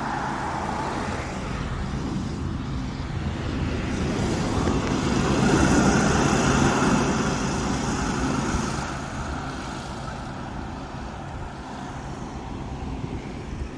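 A Ford police SUV drives past, its engine and tyre noise swelling to a peak about halfway through and then fading as it moves away.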